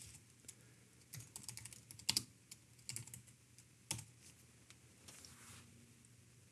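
Typing on a computer keyboard: a few quick runs of keystrokes entering a short terminal command, with a louder key press about two seconds in and another just before four seconds.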